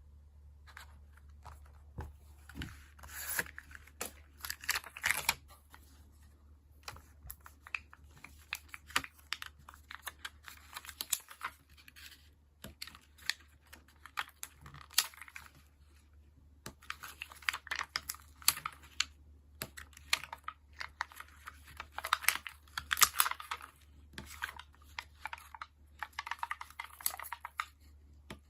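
Stickers being peeled from their backing sheets and pressed onto journal paper, with paper rustling and small taps and clicks coming in irregular clusters of a few seconds each.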